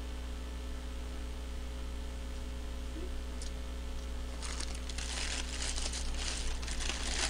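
Steady mains hum, then from about four seconds in a dense crackling and crinkling as a hamburger's paper wrapper is handled.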